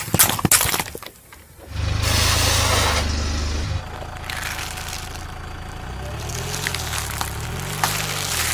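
A few sharp cracks of something breaking under a car tyre, then the car's engine running low with tyre noise; the engine's pitch rises and falls twice near the end.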